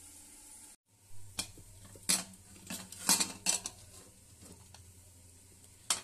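Pressure cooker lid being worked loose and lifted off, giving several sharp metal clanks and scrapes of lid against pot.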